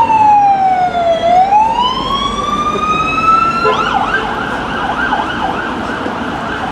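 Emergency vehicle siren: a slow wail falling and then rising in pitch, switching about four seconds in to a fast warbling yelp.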